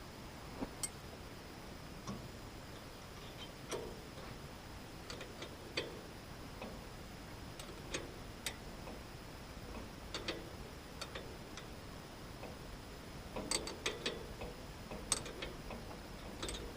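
Allen key working the screws that hold a sawmill spindle: scattered light metal clicks and clinks at irregular intervals, with a quick cluster of them about three-quarters of the way through.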